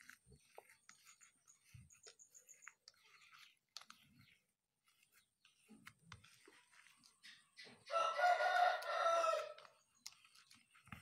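A rooster crows once, loud and about a second and a half long, starting about eight seconds in. Under it, faint soft squishing of mashed instant-noodle bait dough being kneaded by hand in a plastic tub.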